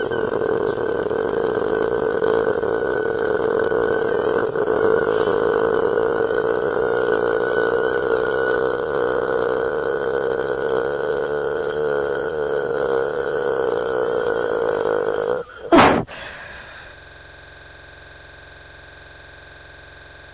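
A girl's long, drawn-out burp, one steady belch held for about fifteen seconds, ending in a short, loud burst.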